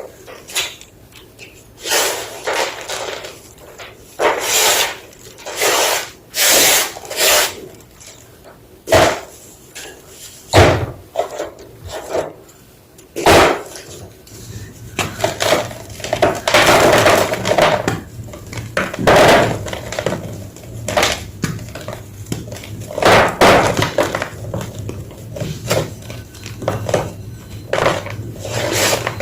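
Large slabs of gym chalk crunching as they are crushed and crumbled, a long series of irregular crunches that come closer together in the second half.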